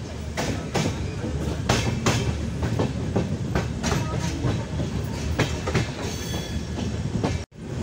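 Express train running fast, heard from beside a coach: a steady rumble with quick, irregular clacks as the wheels run over rail joints and points. The sound cuts off abruptly about seven and a half seconds in.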